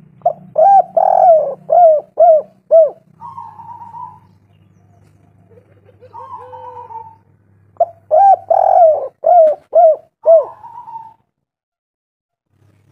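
Spotted dove (tekukur) cooing: two loud bouts, each a quick run of about six short rising-and-falling coos ending in a flatter note, with fainter coos between them.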